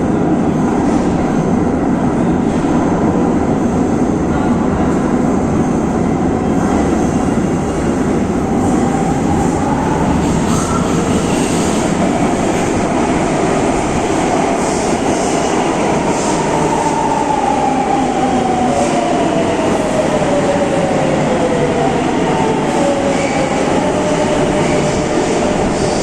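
Madrid Metro 9000-series trains passing through a station: a loud, steady rumble of wheels on rail. An electric motor whine glides down in pitch about two-thirds of the way through.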